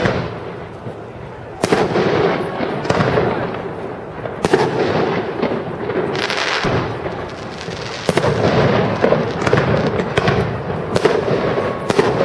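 Aerial firework shells bursting in a series of loud bangs a second or two apart, each trailing off in a rumbling echo.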